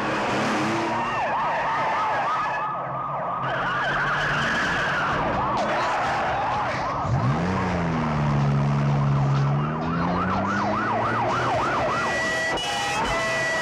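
Several police sirens wailing and yelping, their pitch sweeping up and down fast. About halfway through, a car engine revs up sharply and holds high for a few seconds.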